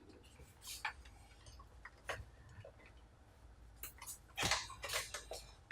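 Scattered light clicks and taps of a laptop's plastic casing and parts being handled and pried at, with a few louder clicks near the end.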